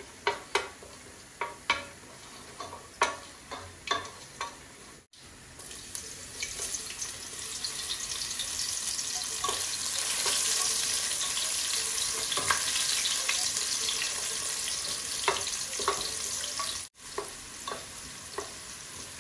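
Sliced onions sizzling in hot oil in an aluminium pot, stirred with a wooden spatula that knocks against the pot. The first few seconds hold only sharp knocks; the sizzle starts about six seconds in and is loudest through the middle.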